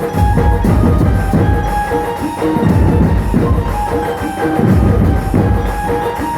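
Loud dhumal band music: drums pounding a steady beat under a melody of held notes, with no singing.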